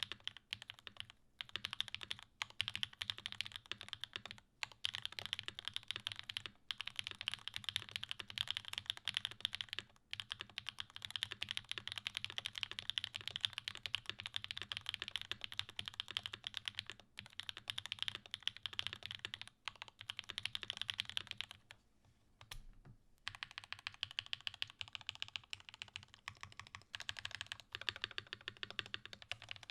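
Continuous fast typing on a custom mechanical keyboard with long-pole Gateron Pure Berry switches, factory-lubed, on a UHMWPE plate with GMK keycaps; a clacky, fairly loud keystroke sound. Typing pauses briefly about two-thirds of the way through, then carries on.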